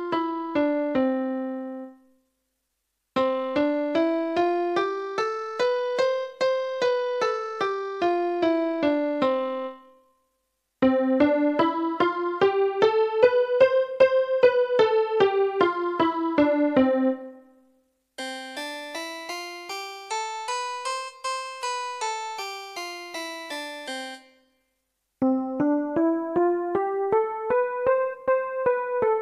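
Yamaha PSS-F30 mini-key keyboard playing a one-octave scale up and back down in one preset voice after another, with a short pause between voices. The piano voices come first, then a much brighter, jangly voice that fits its harpsichord, then a softer voice starting near the end.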